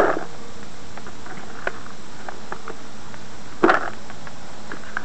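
Boiled corn and wheat particles tipped from a baiting spoon into a plastic bucket: one short rattle of wet grains about three and a half seconds in, with a few small clicks in between.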